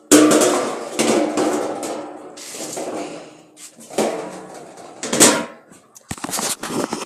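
Kitchenware clattering: a string of hard knocks, the loudest at the start, each followed by a brief ringing, as dishes are handled and set down.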